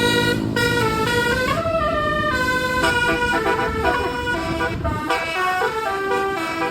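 Indonesian bus telolet horn, a set of musical horns playing a melody of changing notes, several tones at once, over a low rumble.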